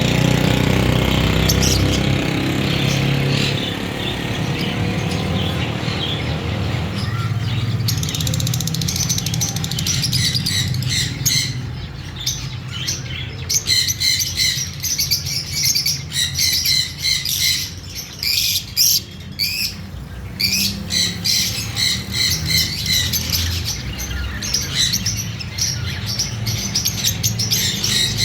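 Fischer's lovebirds chirping in quick, short, high calls, which get busier and denser about ten seconds in. A steady low hum runs underneath.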